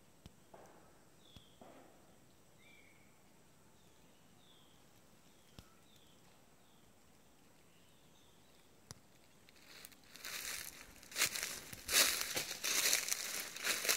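Faint short high chirps repeated over the first few seconds, then footsteps crunching through dry fallen leaf litter from about ten seconds in, loud and irregular.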